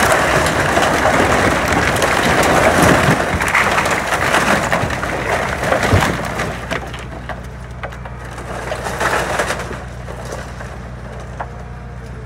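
An old wooden barn collapsing under an excavator: timbers cracking, splintering and crashing down, loudest for about the first six seconds. After that it is quieter, with another burst of falling boards about nine seconds in and the excavator's engine running underneath.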